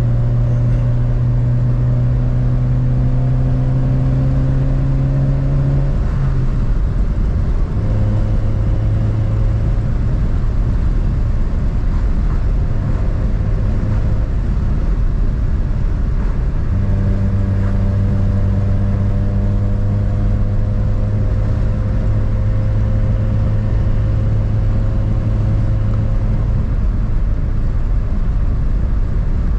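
Honda Civic driving at speed: a steady engine drone over loud road and tyre rumble. The engine note rises gently for about six seconds, then drops and settles at a lower steady pitch.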